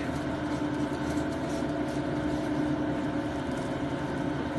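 A steady machine hum with a constant low tone, like a motor running without change.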